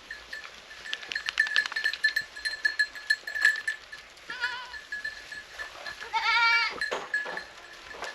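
Goat bleating twice, a short wavering call about four seconds in and a longer, louder one about six seconds in. A steady high whine and a run of sharp clicks in the first half sit beneath.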